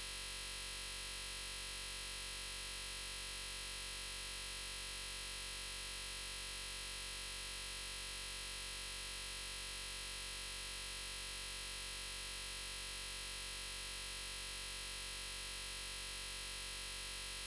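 Faint, steady electronic drone with hiss, holding the same mix of tones without any change.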